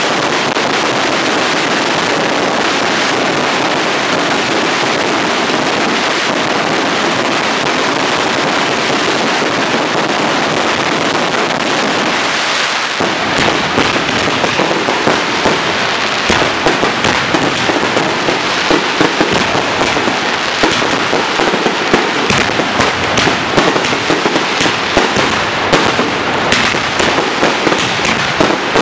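Close-range fireworks display. A steady, dense rushing hiss runs for about the first thirteen seconds. After that comes a rapid, uneven string of bangs and crackles from bursting shells and crackling stars.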